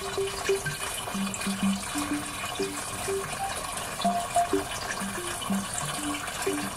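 Water trickling steadily down a hydroponic tower planter into its reservoir.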